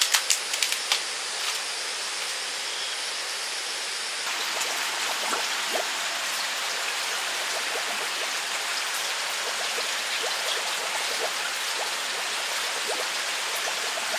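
Steady hiss of water outdoors, with a few sharp clicks in the first second. From about four seconds in it grows a little fuller, with fine crackles.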